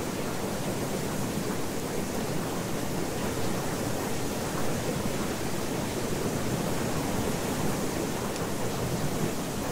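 Steady, even rushing noise with no breaks or surges: the masking bed of a subliminal recording, laid over spoken affirmations that are kept too quiet to make out.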